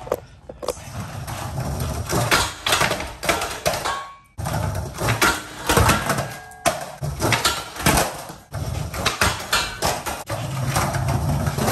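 Skateboard wheels rolling over a tiled floor, broken by sharp clacks and knocks of the board popping, striking a metal flat rail and clattering down after bailed nollie smith grind attempts, over several tries.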